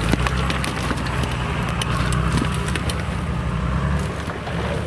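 Nissan Patrol GR 4x4 engine running steadily at low speed, with sharp cracks and snaps of twigs and branches breaking under the tyres.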